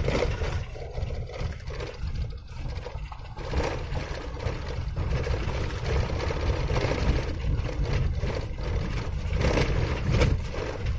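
Car driving on a rough, corrugated dirt road, heard from inside the cabin: a steady low rumble of tyres and engine with constant small knocks and rattles.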